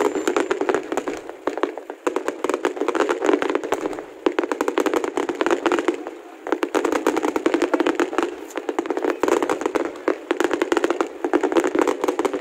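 Fireworks display: a dense, rapid crackle of many sharp reports a second, with brief lulls about two, four and six seconds in.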